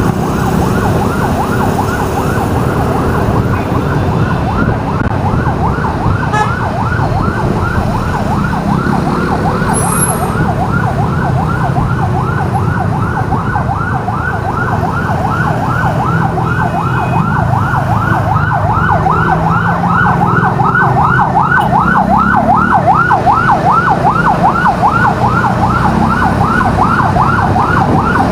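Emergency vehicle's electronic siren in a fast yelp, rapid rising sweeps about three a second, growing louder in the second half. Under it runs the low rumble of road traffic.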